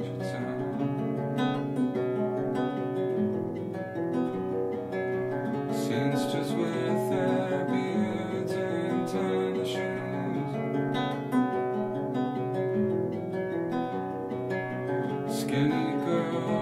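Acoustic guitar music: a run of plucked notes carrying on steadily.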